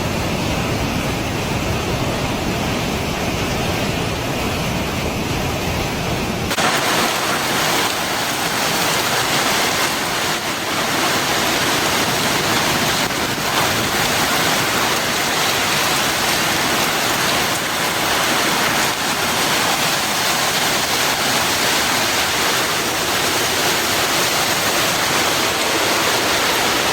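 Continuous loud rushing of fast-flowing floodwater. About six and a half seconds in it changes abruptly from a deep rumble to a brighter hiss.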